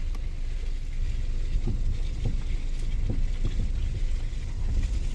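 Vehicle driving slowly over a muddy field: steady low engine and tyre rumble, with a few faint short squeaks in the middle.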